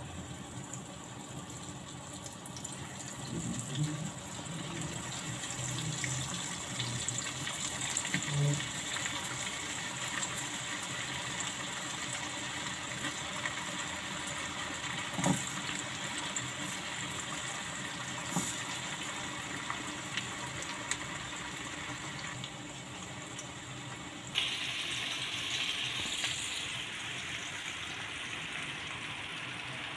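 Hot cooking oil sizzling and bubbling steadily in a pan on a gas stove as breaded meat deep-fries, the hiss growing brighter and louder about 24 seconds in. A few brief knocks and clicks sound over it.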